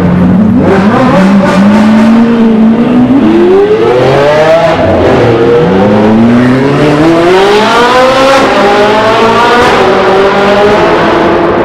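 Sports car engine accelerating in a tunnel, loud. Its pitch holds, climbs, drops back about five seconds in, then climbs again and holds near the end.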